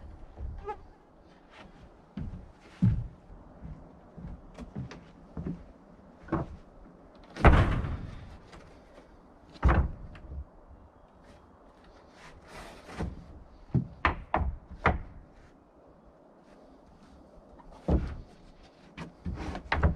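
Sawn red pine boards and wooden stickers being set down on a lumber stack: irregular wooden knocks and thuds, the loudest two about seven and a half and ten seconds in.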